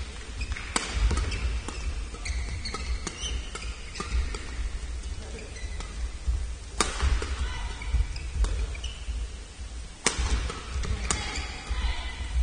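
Badminton play on an indoor court: sharp smacks of rackets hitting a shuttlecock, the loudest about seven seconds in and two more near the end, with short squeaks of shoes on the court floor and a low hall rumble.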